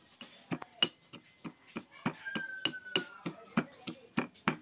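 Pestle pounding ginger in a small metal mortar: a steady run of sharp metallic knocks, about three a second, each with a brief clinking ring.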